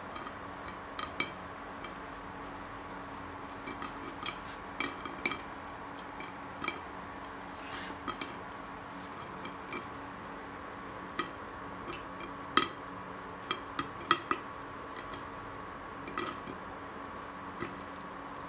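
Popcorn popping in a covered frying pan with a glass lid: scattered sharp pops and taps of kernels against the lid, irregular, about one or two a second, over a steady faint hum.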